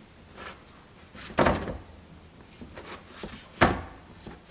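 Milk-and-walnut buns being flipped with a silicone spatula on an electric baking pan: a few soft thuds and knocks as the spatula and buns hit the pan, two louder ones about two seconds apart.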